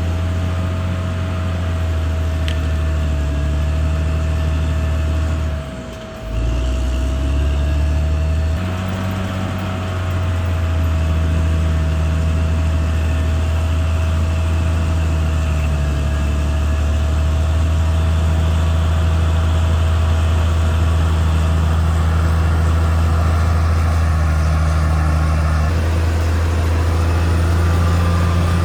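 Caterpillar D6R XL bulldozer's diesel engine running steadily with a deep low hum, briefly dropping in level about six seconds in.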